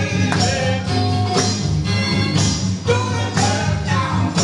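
Loud music with a steady beat and heavy bass.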